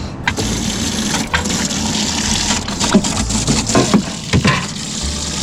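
Water gushing and splashing into a boat's livewell, with several sharp knocks through it.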